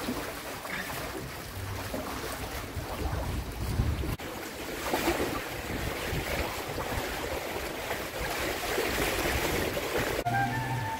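Wind buffeting the microphone and water rushing past a trimaran under sail, a steady unpitched rush. Music comes in near the end.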